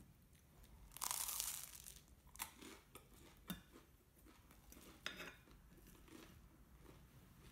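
Crisp toast crunching and crackling as it is handled, loudest for about half a second near the start, followed by a few light clicks of a metal fork on a plate.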